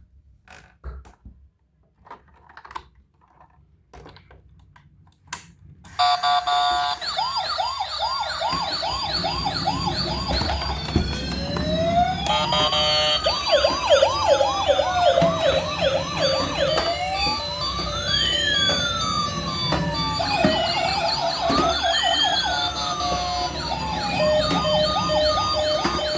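A few light clicks and knocks, then about six seconds in several toy vehicles' electronic sirens switch on at once and keep sounding loudly. Fast yelping and slower rising-and-falling wails overlap.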